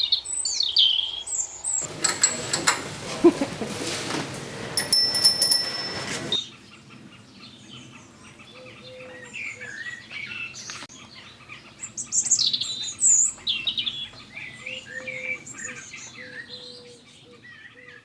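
Small birds chirping and singing. About two seconds in, a loud rushing noise with clicks and a few steady high tones breaks in for about four seconds, then cuts off suddenly, leaving the birdsong.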